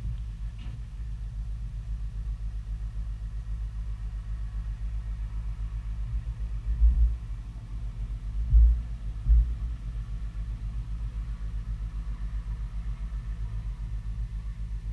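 A boat motor running steadily as a low drone that pulses several times a second. Three heavier low thumps come around the middle.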